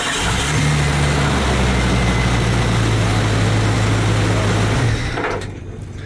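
1996 Jeep's engine cranking and catching almost at once, running with a higher note for the first second before settling to a steady idle, then stopping about five seconds in. It starts now that the loose battery-cable nut on the starter has been tightened, curing the voltage drop on the heavy cable that caused the no-crank.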